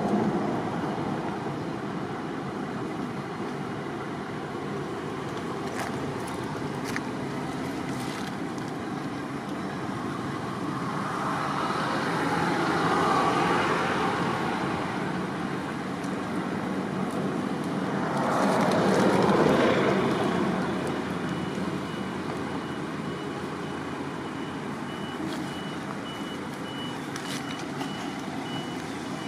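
Outdoor traffic noise: vehicles pass twice, each swelling and fading over a few seconds, and near the end a vehicle's reversing beeper sounds in an even series of high beeps.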